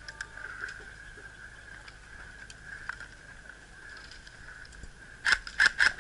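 Faint scattered clicks over a steady high hum, then about a second before the end a rapid run of loud, sharp airsoft rifle shots, about five a second.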